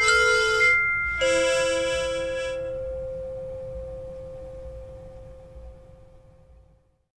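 Instrumental music ending: a couple of short notes, then a final chord about a second in that rings and fades away, dying out just before the end.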